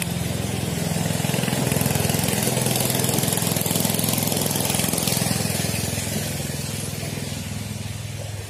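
A small boat engine running steadily, a little louder through the middle and easing off toward the end.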